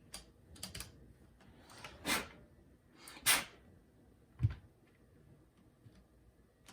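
Rubber keycaps being handled and pushed onto a mechanical keyboard's switches: a few sharp clicks, two longer scraping sounds about a second apart, then a dull thump.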